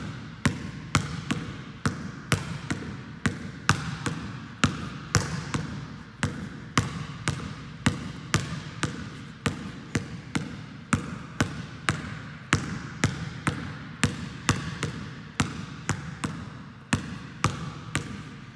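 Basketball dribbled hard on a gym floor in a pound, between-the-legs and crossover drill: a steady run of sharp bounces, about two to three a second.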